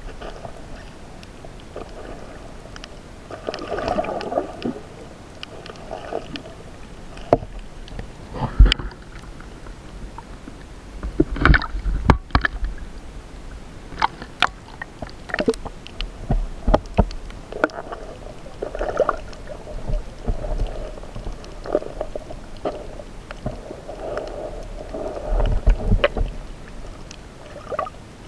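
Shallow seawater sloshing and splashing around an action camera as it dips in and out of the water, with many irregular sharp knocks and clicks and a low rumble.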